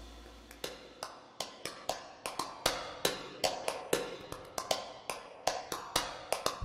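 Countdown-timer sound effect: sharp ticks, about three to four a second, slightly uneven and growing louder, over the fading tail of background music. Loud music comes in at the very end.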